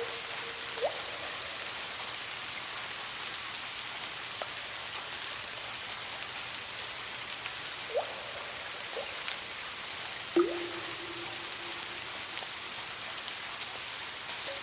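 Soft steady rain hiss with occasional water drips, each a short pitched plink. There are about four drips, the loudest one about ten seconds in, followed by a brief ringing tone.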